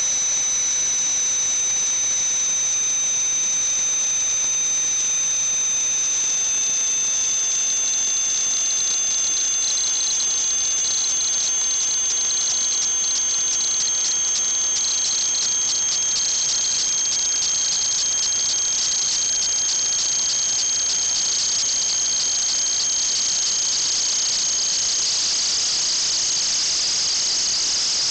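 Steady high-pitched whistling over a hiss: a few thin tones, one slowly falling and one slowly rising, with the top tone turning louder and rougher about a third of the way in.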